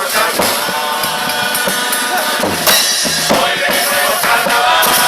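Uruguayan murga: a chorus sings in unison over the murga drums and cymbals. The music grows louder and brighter a little past halfway.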